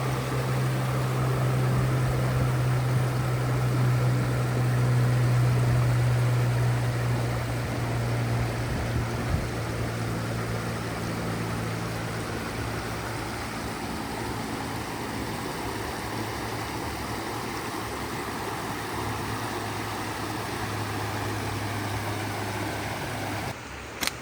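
A steady low motor hum under a broad rushing noise, easing slightly in level partway through.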